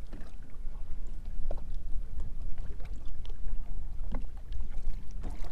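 Wind rumbling on the microphone aboard a bass boat on choppy open water, with waves lapping against the hull and a few faint short splashes or knocks.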